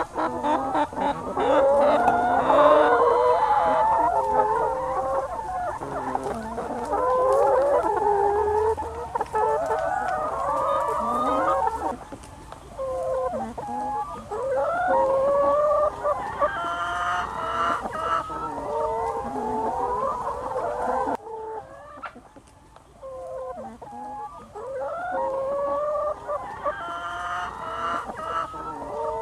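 A flock of free-range brown hens clucking and calling, many voices overlapping. The chorus is dense at first, then thins out after about twelve seconds into separate, more spaced-out calls, quietest a little past the middle.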